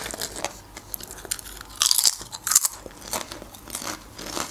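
Potato chips being bitten and chewed, a run of crisp crunches and crackles with louder crunches about two seconds in.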